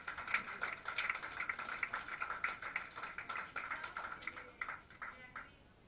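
Rhythmic clapping, about three to four claps a second, that weakens and stops about five and a half seconds in.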